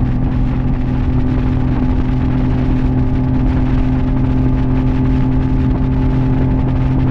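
Mercury outboard motor running at a steady cruising speed on a planing speedboat, a constant low engine hum of unchanging pitch, with the rush of water from the wake.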